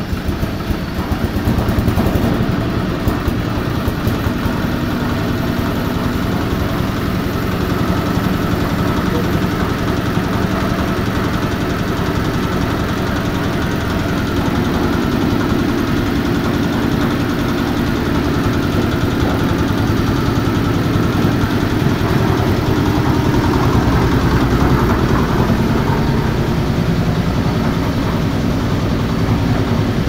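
Small diesel engine of a hopper-fed concrete mixer running, rising over the first couple of seconds and then running steadily.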